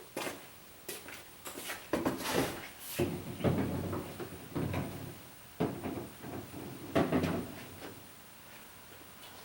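A run of irregular clunks and knocks with some rustling, as of objects being handled and set down, clustered from about two seconds in until a little past seven seconds.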